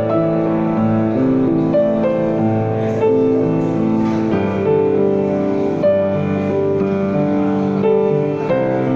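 Piano music: a slow, gentle piece of sustained chords and melody notes.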